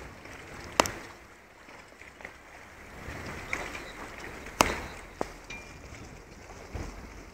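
Harbour ambience of choppy water and wind on the microphone, a steady rushing noise broken by three or four sharp knocks: one about a second in, two close together past the middle, and a softer one near the end.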